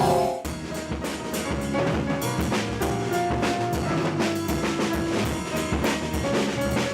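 Music with drums beating a quick, even rhythm under a few held melody notes.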